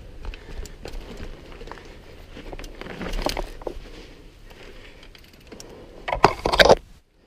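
Mountain bike rolling over a dirt singletrack, with scattered clicks and rattles from the bike on the rough ground. About six seconds in, leaves and branches brush loudly across the helmet camera, the loudest sound, and then the sound cuts out suddenly.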